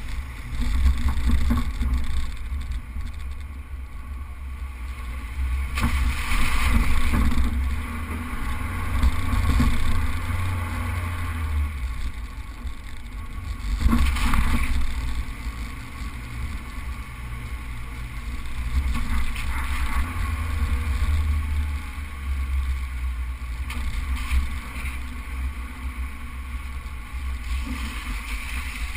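Suzuki four-wheel drive driving along beach sand, heard from an outside-mounted camera: a steady low rumble of engine, tyres and wind that swells and eases every few seconds.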